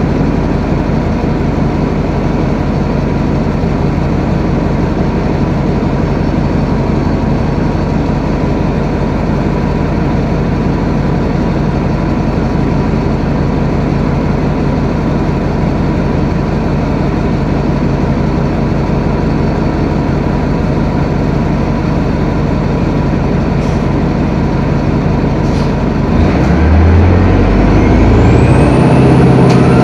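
Detroit Diesel Series 50 inline-four diesel of a New Flyer D40LF transit bus, heard from the rear seats, running with a steady drone. Near the end it grows louder as the engine note changes, and a siren starts rising in pitch.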